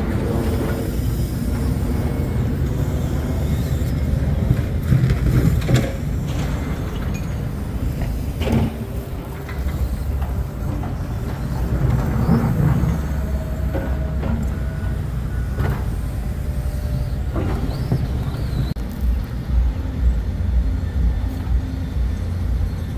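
Steady low rumble of a moving vehicle, with a few scattered knocks and rattles.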